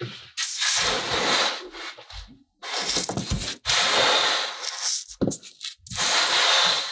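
Orange kinetic sand being squeezed and crumbled between hands, a grainy crunching rustle that comes in four or five surges of about a second each, with short gaps between them.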